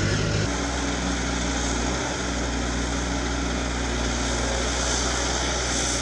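A small dump truck's diesel engine running as it drives, cut off abruptly about half a second in. It gives way to the steady running of a Caterpillar 320D2 hydraulic excavator's diesel engine.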